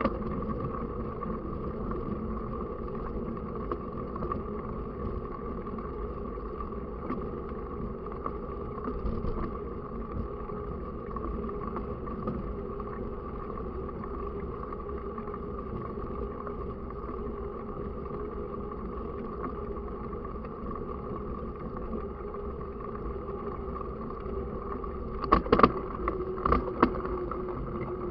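Mountain bike in motion: a steady rolling hum with wind on the microphone, and a cluster of sharp knocks about three-quarters of the way through.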